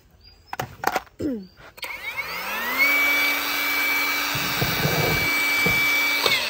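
Hukan cordless angle grinder switched on with a couple of clicks, spinning up with a rising whine and then running unloaded at a steady high pitch. The motor winds down just before the end.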